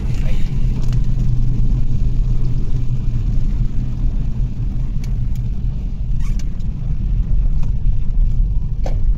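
Car cabin noise while driving on a wet road: a steady low rumble of tyres and engine, with a few faint short ticks.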